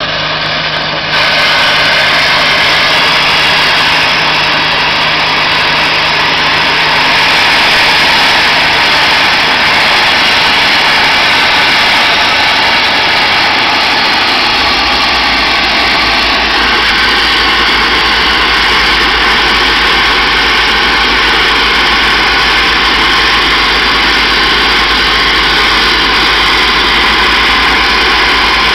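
Facade mist-blasting gun (nevelstralen) spraying a jet of fine mist against brickwork, a loud, steady hiss and rush without a break. A deep hum joins about halfway through.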